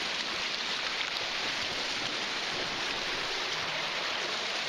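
Lake water washing through the rocks at the shoreline, a steady rush of surf and running water.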